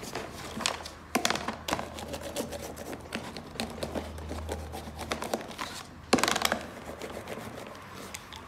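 Metal hand roller worked over foil-faced sound-deadening mat stuck to a plastic door panel, the foil crinkling and clicking irregularly. Two louder knocks, about a second in and about six seconds in.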